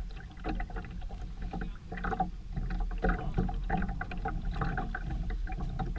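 Sailboat underway: water splashing and slapping against the hull over a steady low rumble.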